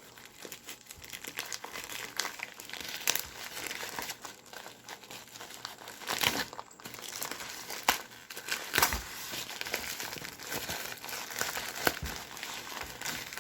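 Parcel packaging being opened by hand: continuous crinkling and crackling with a few louder tearing rips.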